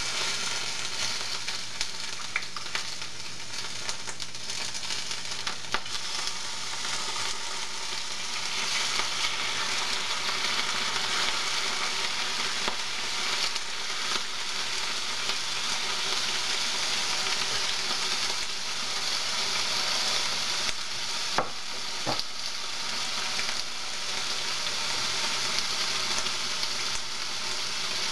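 Chicken strips sizzling in hot olive oil in a stainless steel skillet, a steady frying hiss. A few sharp clicks come as the pieces are stirred, two of them close together about three-quarters of the way through.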